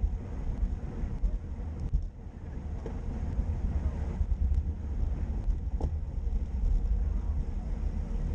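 Wind buffeting the microphone of an action camera moving along a road: a steady low rumble with road noise and a few faint clicks.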